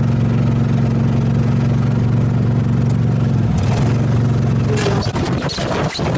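Small tractor's engine running steadily and loudly; from about five seconds in the hum breaks up under a run of clattering knocks.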